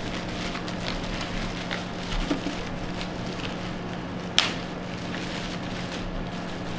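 Thin plastic bag crinkling and rustling as it is pulled off a CDJ player, with one sharper crackle about four and a half seconds in.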